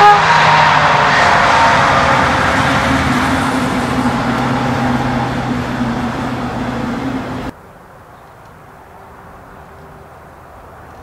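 DB class 218 diesel-hydraulic locomotive passing close with its double-deck train: the engine's pitch falls as it goes by, a short loud note sounds right at the start, and the coaches' wheels roll on with a steady low hum. About two-thirds of the way in, the sound cuts off suddenly to a much fainter distant train and open-air background.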